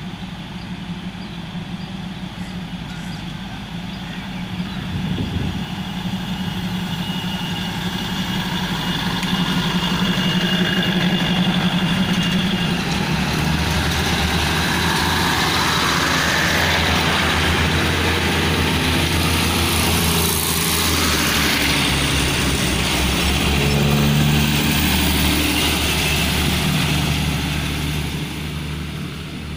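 Diesel railcar train running past close by: the underfloor diesel engines hum steadily, growing louder as it approaches. Wheel and rail noise swells while the cars go by, and the sound fades near the end as the train moves off.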